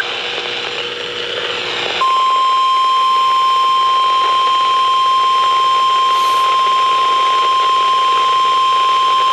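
Weather radio static hiss, then about two seconds in the NOAA Weather Radio 1050 Hz warning alarm tone starts: one steady, loud, high tone over the hiss, signalling that a warning alert is being broadcast.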